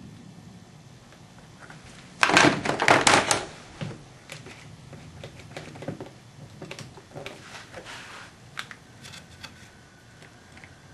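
One-handed quick-release bar clamps clicking and clattering as they are handled and ratcheted tight onto a freshly glued wooden organ pipe. A loud burst of rapid clicks comes about two seconds in, then scattered quieter clicks follow.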